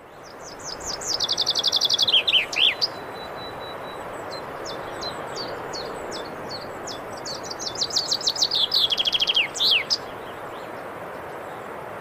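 Male common chaffinch singing twice: each song a fast trill of notes stepping down in pitch, ending in a quick downward flourish, about two and a half seconds long. Scattered short high chirps fall between the two songs, over a steady background hiss.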